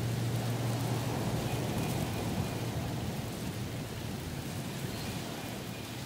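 Strong wind rushing through rainforest trees, a steady noisy rush that eases a little after about two seconds. Faint bird calls come through in the background.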